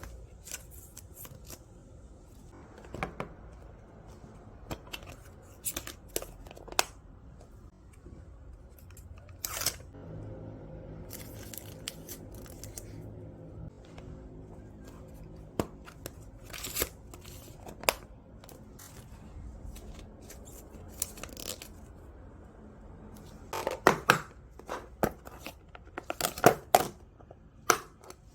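Scattered light clicks, snips and rustles of small objects being handled, with a cluster of sharper, louder clicks near the end.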